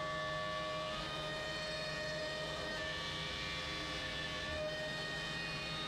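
Shapeoko CNC router's trim-router spindle running at high speed while it mills a pocket in wood, a steady whine over the hiss of the cut. The pitch dips and recovers slightly a few times as the bit takes more or less load.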